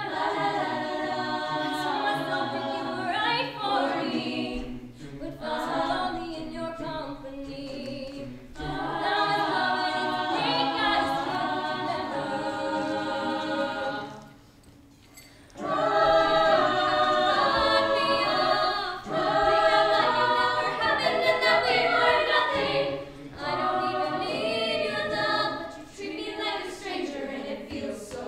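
High school choir singing a cappella, in phrases with a short pause about halfway through.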